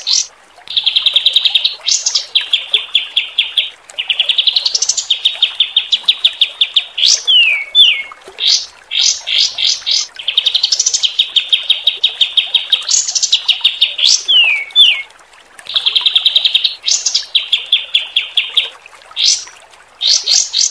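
Songbird master song: fast rattling trills held for a second or two, broken by quick rising whistles and runs of sharp, separate 'shooting' notes, the whole pattern repeating several times.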